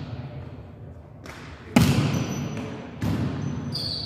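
Volleyball being struck in a reverberant gym: a sharp smack a little before halfway, the loudest sound, a lighter hit just before it and another hit about three seconds in, each ringing on in the hall. Short high sneaker squeaks on the court floor come after the big hit and again near the end.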